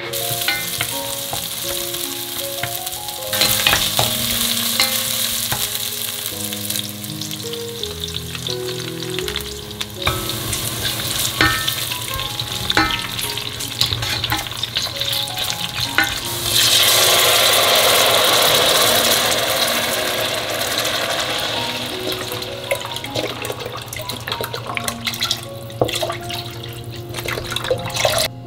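Sliced green onions and mala sauce sizzling in hot oil in a stainless steel pot, with a utensil clicking against the pot as it is stirred. The sizzle swells louder for a few seconds past the middle. Soft background music plays underneath.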